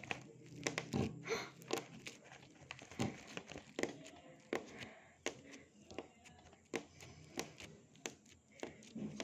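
Slime with colored balls mixed in being squeezed and pressed by hand, making irregular sticky clicks and crackles, several a second.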